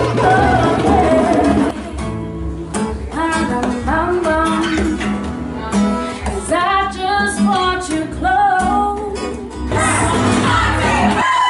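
Music with a drum beat for about the first two seconds, then an acoustic guitar played while someone sings along.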